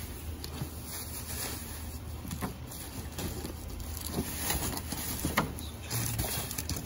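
Scattered rustling and light knocks of cardboard boxes, packaging and plastic bags being moved around in a metal dumpster by gloved hands, over a steady low hum.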